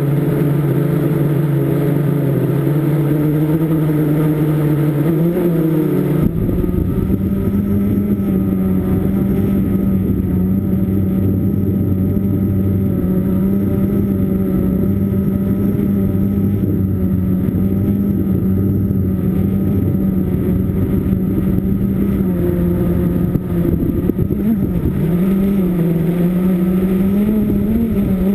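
Blade 350 QX quadcopter's four electric motors and propellers humming steadily in flight, heard from the onboard camera. The pitch steps up about six seconds in and wavers with throttle changes near the end.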